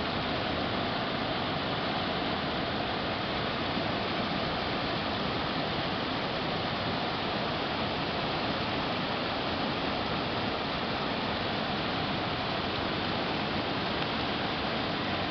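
Rain-swollen creek in flood, its muddy water rushing fast and churning over the rocks and a low concrete weir: a steady, unbroken rush of water.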